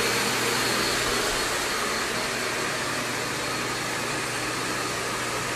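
Upright vacuum cleaner running: a steady rushing noise with a low hum underneath.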